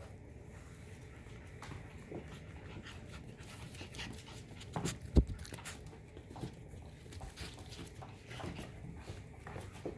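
F1 Cockapoo puppies playing on a hardwood floor: small puppy vocal sounds among scattered clicks and scuffles of paws and toys, with one sharp thump about five seconds in.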